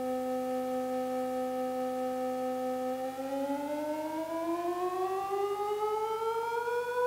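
Synthesized tone from a loudspeaker, held steady for about three seconds, then gliding smoothly up about an octave. Its pitch is being pushed up by the wearer's thoughts through an EEG headset.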